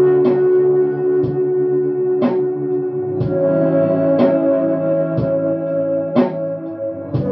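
Electric guitar (Squier Telecaster) played through heavy ambient reverb and delay pedals (Old Blood Noise Endeavors Dark Star and Procession, ARP-87 delay) into a clean amp: held chords blur into a sustained wash, with a new picked note ringing out about once a second. The chord under the wash changes about three seconds in.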